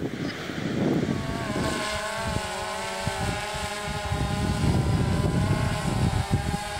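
Quadcopter camera drone hovering, its propellers whining in several close pitches that waver slightly; the whine starts about a second in. Wind rumbles on the microphone underneath.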